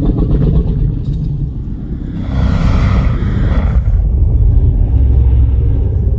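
Godzilla film sound effect: a loud, deep, continuous rumble, with a swell of higher noise rising and falling over about a second and a half near the middle.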